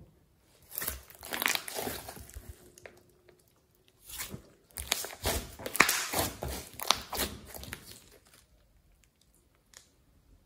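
Hands squishing and pressing thick glossy slime with clay mixed in, making sticky squelches dense with sharp little clicks. It comes in two spells, a short one early and a longer one in the middle, then goes quiet near the end.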